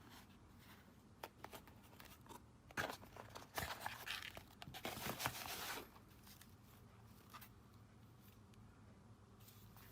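Packaging being handled and torn open: a few light clicks and knocks, then about three seconds of tearing and crinkling from about three seconds in.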